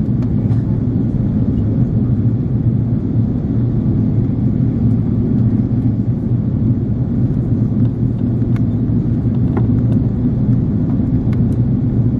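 Steady low rumble of engine and airflow noise inside the cabin of an Airbus A330-300 airliner in flight, descending toward landing.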